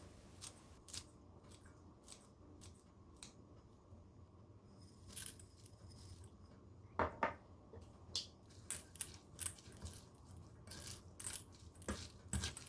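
Quiet, irregular crisp clicks and rustles of food being handled while a salad is garnished with herbs and crispy fried shallots, with a couple of louder clicks about seven seconds in.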